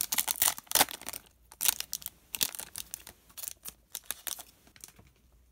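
Foil wrapper of a Topps Chrome baseball card pack being torn open and crinkled: dense crackling for about the first second, then sparser crinkles that thin out and fade toward the end.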